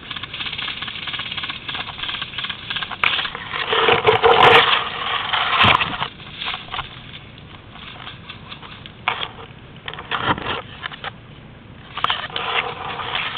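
Dry brush and twigs rustling and crackling as someone pushes through undergrowth, loudest about four seconds in, then thinning to scattered snaps before picking up again near the end.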